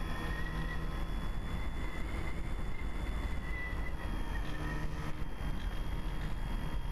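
Multiplex FunCub's electric motor and propeller in flight, a high thin whine that wavers slightly and fades in and out with the throttle, over a low rumble of wind rushing past the onboard camera's microphone.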